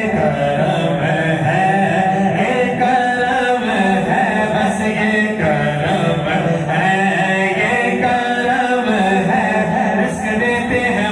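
A man singing an Urdu devotional naat through a microphone, unaccompanied by instruments, in a sustained, chant-like melody.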